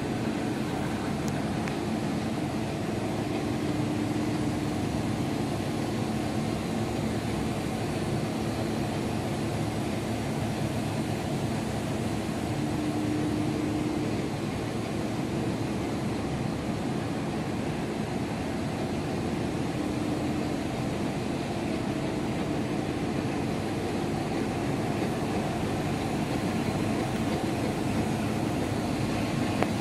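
Rotogravure printing machine running: a steady mechanical whir of its rollers and drives with a low, constant hum, unchanging throughout.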